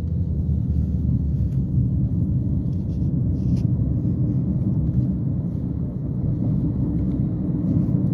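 Sandstorm wind buffeting the phone's microphone, a loud, steady, low rumble.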